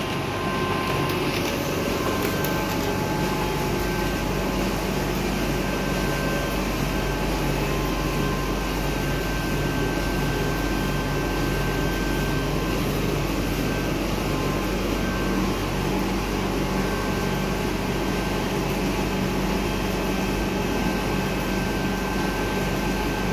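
Canon imagePRESS C9010VP production printer switched on, its cooling fans and motors making a steady hum and whir with a faint steady whine.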